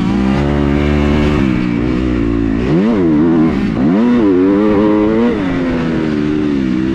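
Dirt bike engine running under throttle. Its pitch holds, rises and falls twice about halfway through, holds higher for a moment, then drops and settles lower as the rider works the throttle and gears.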